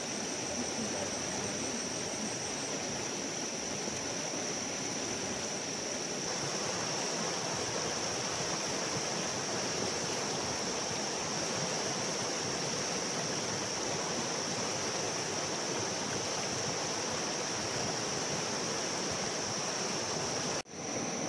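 Fast-flowing, rain-swollen river rushing steadily, with a thin steady high-pitched whine over it. The sound drops out briefly near the end.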